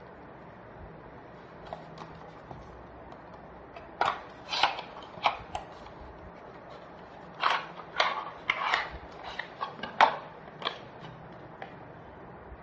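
Cardboard earphone box being opened by hand: a series of short rustles, scrapes and clicks of the card flaps and insert, coming in two clusters, about four seconds in and again from about seven and a half seconds.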